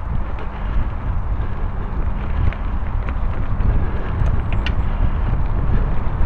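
Mountain bike riding along a leaf-covered forest singletrack: a steady low rumble of wind buffeting the microphone and tyres rolling over the ground, with a few light clicks.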